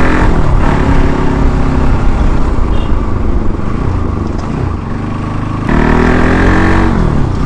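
Bajaj Pulsar NS200's single-cylinder engine through its stock exhaust during hard riding. Its pitch falls shortly after the start as the throttle comes off, it runs quieter for a few seconds, then comes back strongly on the throttle about five and a half seconds in before falling again near the end.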